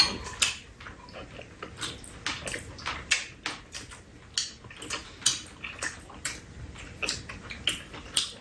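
Mukbang eating sounds: metal spoons clicking and scraping against soup bowls, with wet sounds of chewing and sipping soup. Short sharp clicks come irregularly, several a second.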